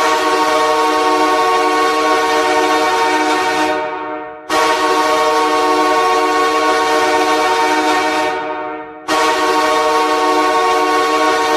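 Los Angeles Kings ice hockey goal horn blasting three times, each a long steady chord-like horn tone of about four and a half seconds. The first two blasts tail off just before the next one starts.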